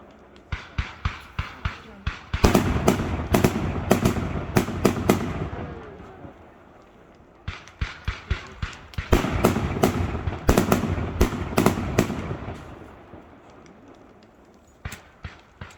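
Fireworks display: volleys of sharp bangs and crackling. A run of spaced bangs starts about half a second in and thickens into a dense barrage for about three seconds, then dies away. A second volley builds the same way from about seven seconds in, and a few more bangs come near the end.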